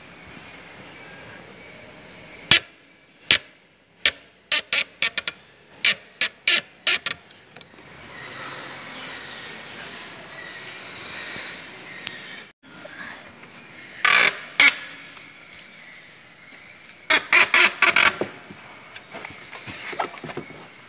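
Kia engine's belt drive running with a steady hiss, broken by sharp, irregular chirps: two single ones, then a quick run of about ten, then two more bunches. The chirps come from a failing auto-tensioner pulley bearing.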